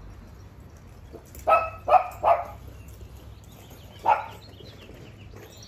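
A small dog barking: three quick barks about a second and a half in, then one more about four seconds in.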